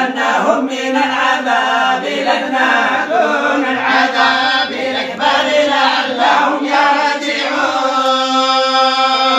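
Several voices reciting the Quran together in unison, a slow, drawn-out melodic chant. A long note is held steadily near the end.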